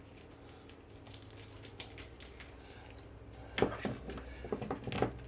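Raw chicken pieces being handled and laid into a pan: soft handling sounds with a few light knocks and clicks bunched between about three and a half and five seconds in.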